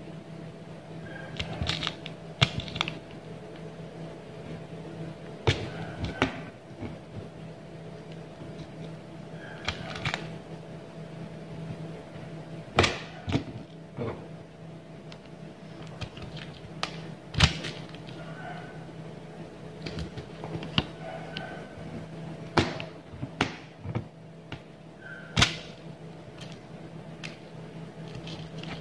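Scattered sharp taps and clicks, one every second or few seconds, from hand bead embroidery with an aari hook needle: the needle punching through fabric stretched taut on the frame and picking beads from a plastic lid. A low steady hum runs underneath.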